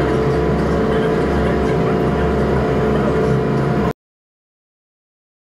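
Ferry's engines running with a steady low hum and several held tones, heard inside the passenger cabin; the sound cuts off abruptly about four seconds in.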